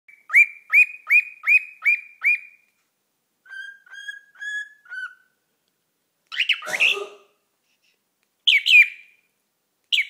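Pet cockatiel whistling. A quick run of six loud falling whistled notes comes first, then four softer, lower notes. A longer, rougher call follows about six and a half seconds in, and a pair of whistles comes near the end.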